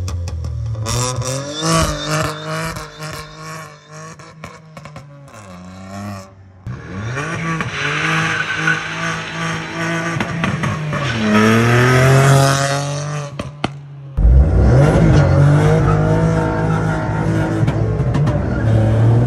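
Volkswagen Polo rally car's remapped 1-litre three-cylinder TSI turbo engine revving through its racing exhaust, very loud, the revs climbing and dropping again several times. The sound changes abruptly about six seconds in and again about fourteen seconds in, and the last stretch is louder and more steady.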